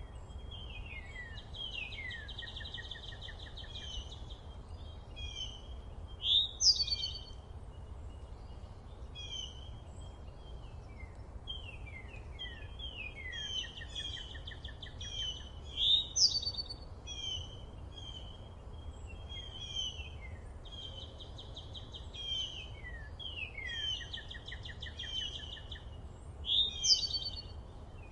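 Several songbirds chirping and trilling in a forest, with short sweeping notes and rattling trills. A louder, bright call stands out about every ten seconds, three times in all, over a steady low rumble.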